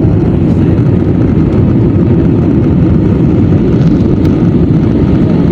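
Jet airliner rolling down the runway just after touchdown, heard from inside the cabin: a loud, steady, deep roar of engines and rushing air.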